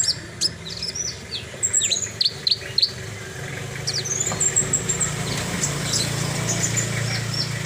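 Javan bush lark (branjangan) singing vigorously: a quick run of sharp, high, downward-slurred whistles, then high rapid chattering trills. A low steady hum runs beneath and grows louder about halfway through.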